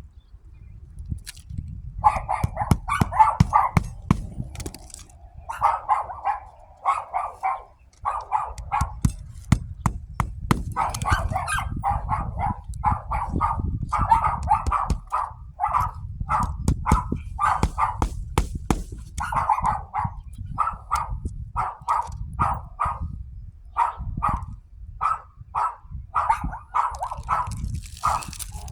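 A dog barking over and over, in runs of short barks, with a low rumble underneath.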